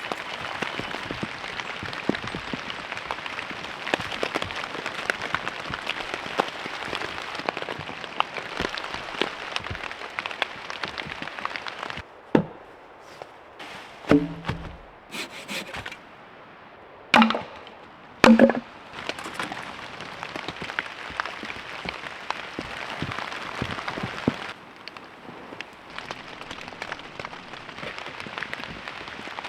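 Steady rain pattering, a dense hiss of drops, dropping away for several seconds mid-way while a few loud sharp knocks sound out.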